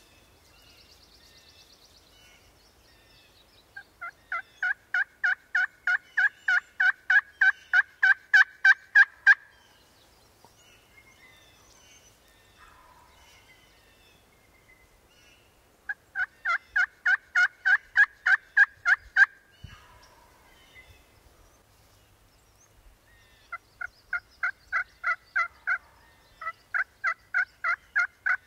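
A bird's loud call of rapid, evenly spaced notes, about four a second, sounded in three long runs of several seconds each, every run growing louder toward its end.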